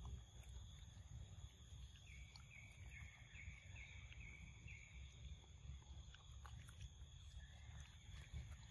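Near silence: quiet forest ambience with a steady high-pitched insect drone and a low rumble. About two seconds in comes a quick run of six short chirps, and a few faint clicks follow later.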